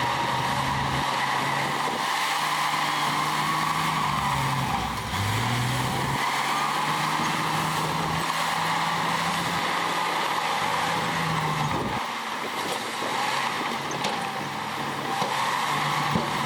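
Heavy diesel earthmoving machinery working, its engine note dipping and then rising again about five seconds in, with the low engine tone dropping away about three-quarters of the way through.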